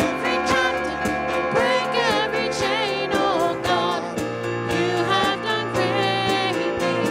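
Live contemporary worship song: singers backed by keyboard, with a steady beat.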